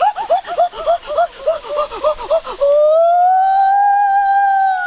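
A high-pitched voice-like call: a quick run of short yelping notes, about four a second, then about two and a half seconds in one long held howl that swells slightly in pitch and falls away near the end.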